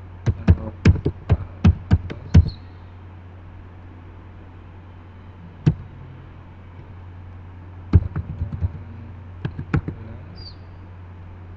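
Computer keyboard keystrokes in quick runs: about ten sharp clacks near the start, a single one in the middle and another run near the end. A steady low hum lies underneath.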